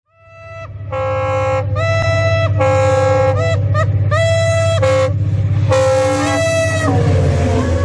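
A multi-tone air horn playing a tune of many short notes at changing pitches over a steady low engine drone. The sound fades in over the first second, and the horn tune stops about a second before the end, leaving the engine drone.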